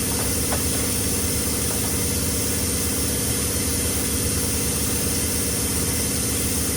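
A machine running steadily with an even hum, like an idling engine.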